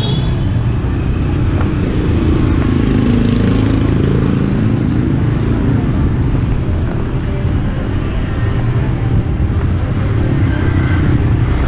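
Loud, steady motor-vehicle engine and road noise, with an engine note that rises and falls about three seconds in.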